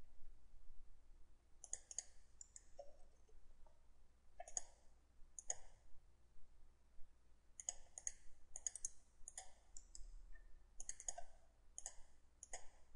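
Faint computer mouse button clicks at irregular intervals, some in quick pairs, made while selecting and copying objects in a CAD drawing.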